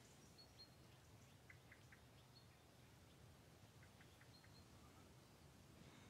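Faint outdoor quiet with small songbirds giving short high chirps in little clusters, about a second and a half in and again around four seconds, plus a couple of brief thin whistles.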